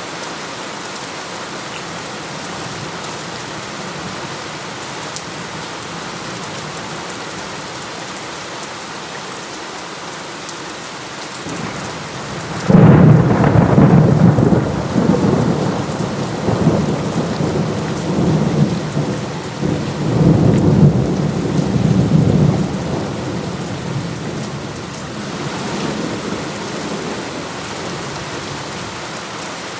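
Steady heavy rain, with a thunderclap that breaks in suddenly a little before halfway. The thunder is loudest at its start, rumbles on with a second swell several seconds later, then dies away back into the rain.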